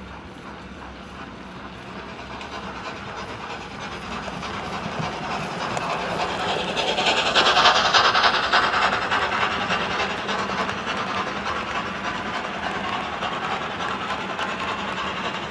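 Sound decoder in a Hornby OO gauge Thompson A2 Pacific model playing a Locoman Sounds steam locomotive profile: rapid steam exhaust beats with hiss and train running noise. It grows louder to a peak about eight seconds in, then eases off a little.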